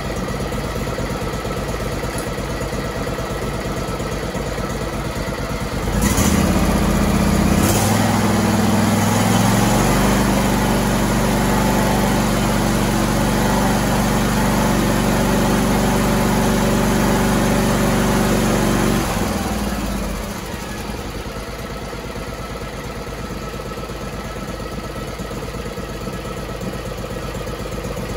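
Air-cooled 21 hp Briggs & Stratton V-twin four-stroke running on an outboard conversion: it idles, speeds up about six seconds in, holds a steady higher speed, then drops back to idle near 19 seconds. This is a throttle check on its replaced governor, after which it runs like a top again.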